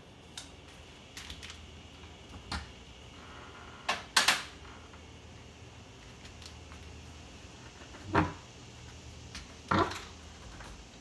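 A handful of short, sharp knocks and clanks from a door and its hinge hardware as the door is taken off its hinges, the loudest a quick double knock about four seconds in, with two more near the end.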